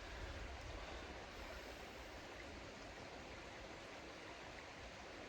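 Faint, steady rushing of a river flowing below, an even wash of water noise, with a little low rumble in the first couple of seconds.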